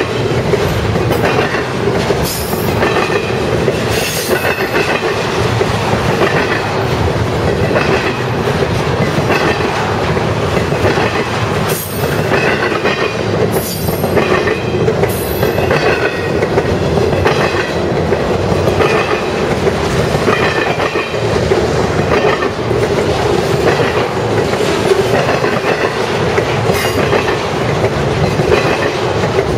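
BNSF trailer-on-flatcar freight train rolling past close by: a steady loud rumble of steel wheels on rail, clacking over the rail joints every second or two, with short high squeals from the wheels now and then.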